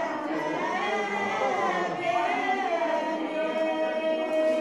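A group of voices singing together without instruments, holding one long note through the last second and a half.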